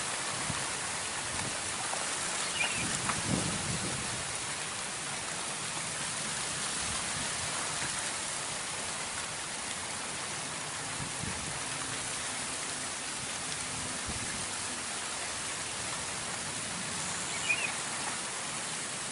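Steady, even outdoor hiss, with two faint short chirps, one about three seconds in and one near the end.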